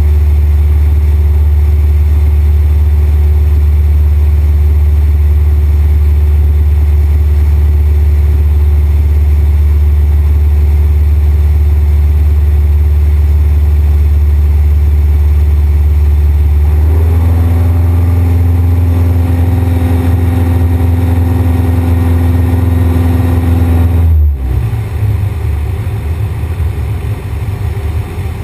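Cessna 172's piston engine and propeller droning steadily, heard inside the cabin. The tone shifts about two-thirds of the way through, then the sound drops suddenly and turns uneven as power is pulled back.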